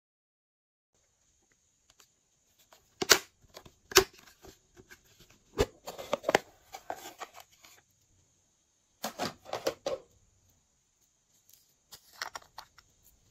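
Glossy slime being squeezed and pressed by hand, giving groups of sticky clicks and small pops with short pauses between them.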